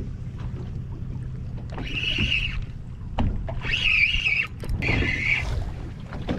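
Fishing reel whirring in three short bursts as line is wound, over the steady low hum of the boat's idling engine.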